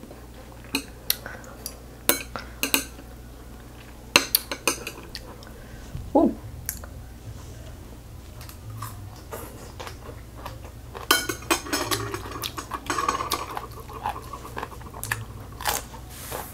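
Metal chopsticks clicking and scraping against a ceramic plate as food is picked up, then close-up eating and chewing sounds as the mouthful is taken. Near the end a chopstick click on a plate suggests they are set down.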